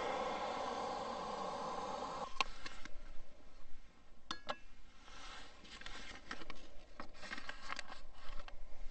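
A gas camp-stove burner hisses steadily under a kettle and stops about two seconds in. Then come a few clicks, two ringing clinks of a plastic pour-over coffee dripper being set on a stainless steel mug, and the crackly rustle of a paper coffee filter being fitted into the dripper.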